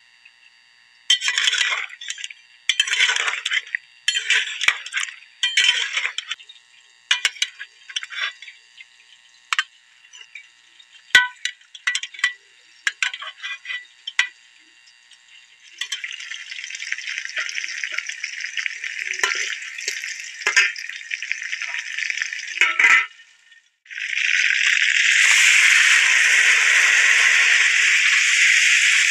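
Metal slotted spoon clinking and scraping against a steel pressure cooker and plate as boiled beef pieces are lifted out. About 24 seconds in, a loud steady sizzle starts as the meat fries in hot oil in an aluminium pot over a wood fire.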